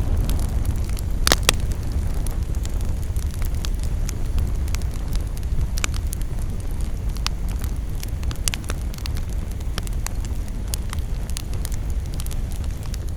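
Campfire burning: a steady low rumble of flames with frequent sharp crackles and pops from the burning wood, two louder pops about a second and a half in.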